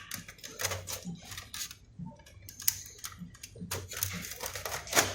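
Irregular light clicks, taps and rattles of small hard plastic and metal parts being handled on a workbench.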